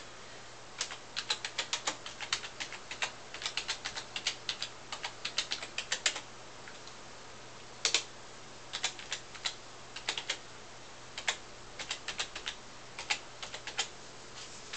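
Typing on a computer keyboard: irregular runs of quick key clicks with a few short pauses.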